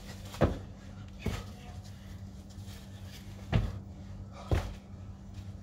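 Box jumps onto a plyo box: four heavy thuds of feet landing, in two pairs about a second apart, over a steady low hum.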